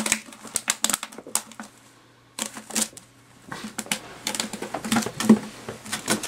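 Empty plastic water bottles crackling, clicking and knocking as a ferret pushes and plays with them: irregular sharp clicks, a brief pause about two seconds in, then denser clatter.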